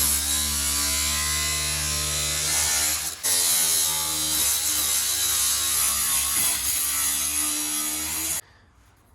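Power tool cutting the top off an empty IBC tote tank, running with a steady buzz, pausing very briefly about three seconds in, then stopping suddenly shortly before the end.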